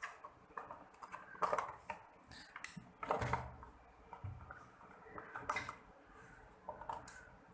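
Scattered light clicks and knocks of plastic parts being handled as a rechargeable table fan's battery is taken out of its casing. A few thumps stand out, about one and a half, three and five and a half seconds in.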